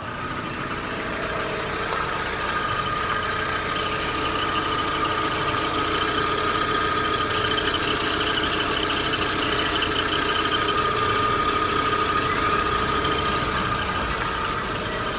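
Daewoo Lanos 1.6 16-valve engine running with a steady high-pitched whistle, brought out by accessory load with the heater and other consumers switched on. The owner suspects the timing belt, its idler rollers or the water pump.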